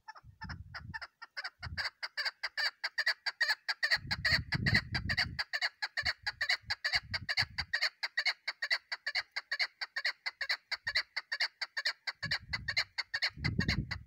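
Female chukar partridge calling in a long, unbroken run of rapid clucking 'chuk' notes, several a second. Low rumbles sound underneath midway and near the end.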